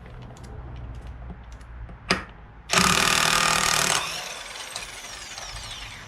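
Impact wrench hammering for about a second as it breaks loose a nut on the ATV's variator, followed by its motor spinning down with a falling whine. A short click comes just before.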